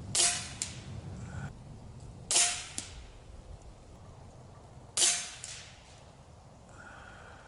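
Snowpeak M60 air rifle fired three times, about two and a half seconds apart, each shot a sharp crack followed by a fainter click about half a second later.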